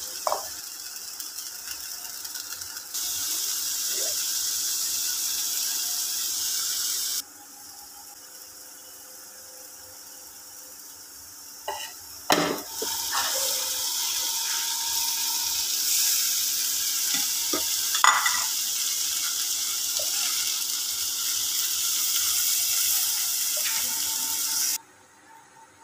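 Chicken pieces sizzling as they fry in oil in a pan, with a slotted spatula scraping and clinking against the pan as they are stirred. The sizzle's loudness jumps up and down suddenly a few times and drops away near the end.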